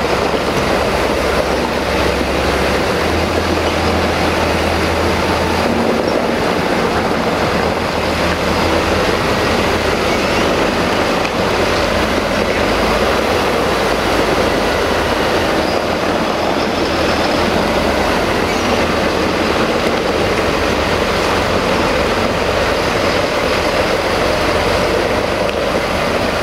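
Valtra T-series tractor's diesel engine running steadily.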